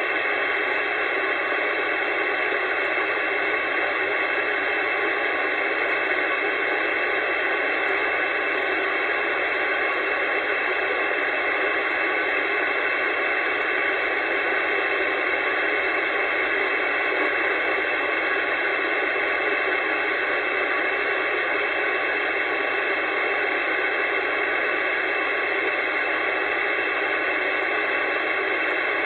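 CB radio receiver hissing with steady static, squelch open and no station coming through on the channel.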